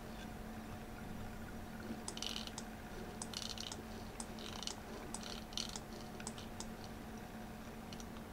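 Clicking of computer controls used to navigate a map on screen: scattered single clicks and, from about two seconds in, several short rapid runs of clicks.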